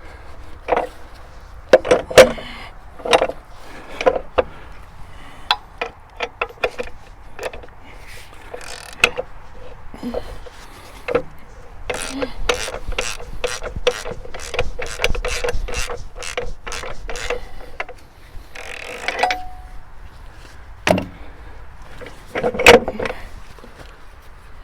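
Hand tools working steel mounting hardware: sharp metal clanks and knocks, and in the middle a run of quick, even ratchet-wrench clicks, about three a second, as bolts are tightened.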